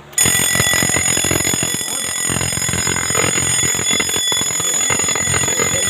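Fire alarm bell of an FDAS system ringing continuously. It sets off suddenly just after the start, triggered by a zone 2 test at the control panel.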